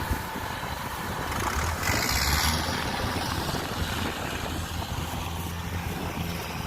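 Kubota DC105X combine harvester's diesel engine running, a steady low drone, with a louder rushing noise swelling about two seconds in.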